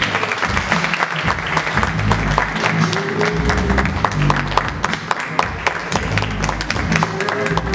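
Audience clapping and applauding over slow backing music with low sustained notes.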